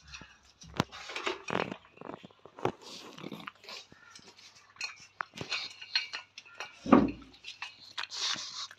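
A pug eating chapati from a steel bowl: irregular chewing and snuffling with clinks as its muzzle knocks the metal bowl, and one louder thump about seven seconds in.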